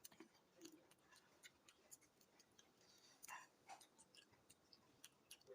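Faint eating sounds: scattered soft clicks and smacks of chewing, with a slightly louder cluster a little past halfway.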